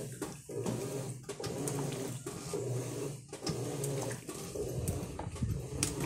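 Electrolux LM08 top-loading washing machine agitating a load of wet fabric: a steady motor hum with water sloshing. The sound dips briefly about once a second as the agitator reverses.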